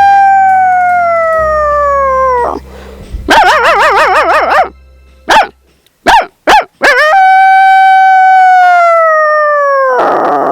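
A woman imitating a dog with her voice. A long howl falls slowly in pitch, then comes a loud wavering cry and a few short, sharp yips. A second long falling howl follows, and near the end another wavering cry.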